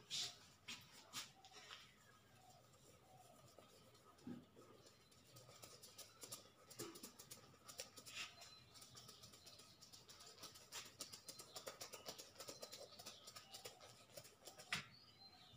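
Faint whiteboard eraser and marker work: quiet rubbing across the board with many light ticks and taps, and a few sharper knocks near the start and near the end.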